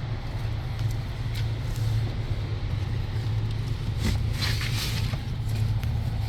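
Steady low mechanical hum, with a few short clicks and rustles of hands working, the most noticeable about four seconds in.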